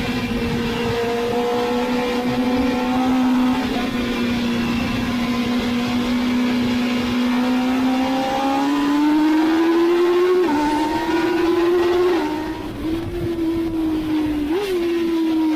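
Kawasaki ZXR750 inline-four race engine running hard at high revs under riding wind. Its note holds steady, then climbs over the second half, with a brief throttle lift and two short sharp rises in pitch near the end.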